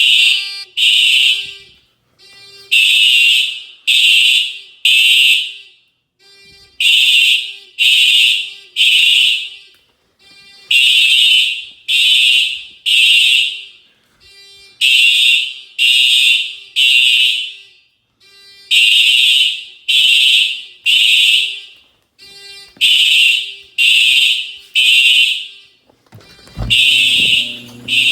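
Simplex fire alarm sounding in the temporal-3 evacuation pattern: three loud tone pulses about a second apart, the group repeating every four seconds. A low thump and rumble come in near the end.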